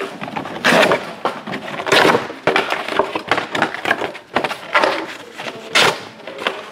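Trading-card packaging being torn open and handled: a quick series of short crinkling, rustling rips, about a dozen in a row.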